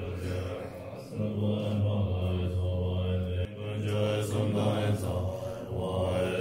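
Tibetan Buddhist monks chanting the liturgy of a pacifying fire puja together in low, steady voices, with short breaks between phrases.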